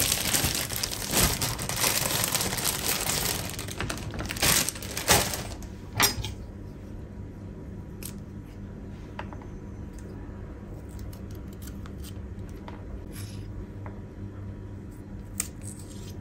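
Plastic bag of long green beans crinkling and rustling loudly as it is opened and the beans pulled out. After about six seconds it stops, leaving a few scattered light taps on a wooden cutting board as the beans are trimmed.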